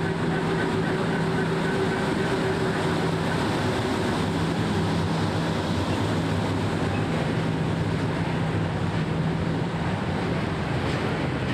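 Freight train of hopper wagons rolling past along the platform: a steady rumble with a low, even hum that drops out briefly a few times.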